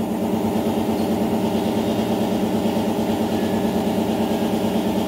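An engine idling steadily, with a fast, even pulse to its hum.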